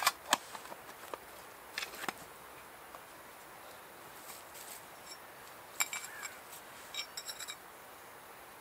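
A few short, sharp metallic clicks and clinks from small objects handled in the hands, coming in scattered clusters, some with a brief ring.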